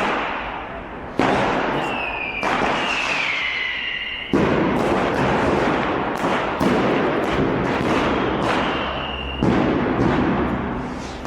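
Street fireworks: a run of loud firecracker and rocket bangs, four big blasts with sharp crackling between them. Several whistling rockets glide down in pitch.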